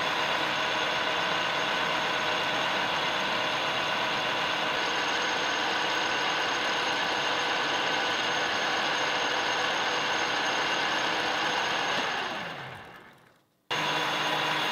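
Small metal lathe running steadily while a carbide insert turns a short metal pin. About twelve seconds in it winds down, its pitch falling as the spindle slows. After an abrupt cut the lathe runs again with a lower hum while the spinning pin is polished with an abrasive pad.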